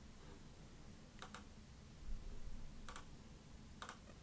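Faint computer mouse clicks: a quick pair, then two single clicks, over a low steady room hum.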